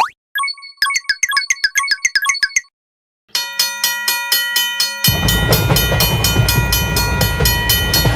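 Cartoon railroad crossing warning bells clanging in a fast, even rhythm: first a thin chime, then from about three seconds in a fuller, ringing bell. About five seconds in a loud low rumble of a passing train joins in and stops near the end. A quick rising plop opens the clip.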